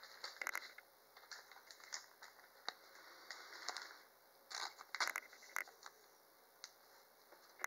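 Faint crinkles and scrapes of a thin clear plastic card sleeve as a Pokémon trading card is slid into it, with cards rubbing and clicking against each other. The sharpest crackles bunch together a little past the middle.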